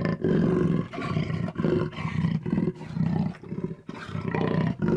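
Jaguar roaring: a run of rough, deep grunting calls repeated about twice a second.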